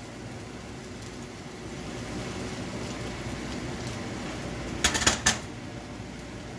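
Steady hiss of a home kitchen at the stove, with a quick cluster of sharp knocks of cookware being handled about five seconds in.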